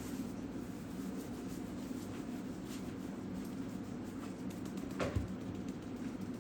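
Steady low room hum with faint small clicks, and one short falling sound about five seconds in.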